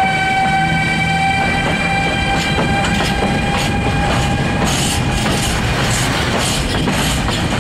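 Siemens ES64F4 (Class 189) electric locomotive starting off under power, its traction inverters sounding a steady chord of high tones that fades away as it pulls off. Empty open coal wagons follow, their wheels clattering over the rail joints, the clatter growing louder and busier about two-thirds of the way through.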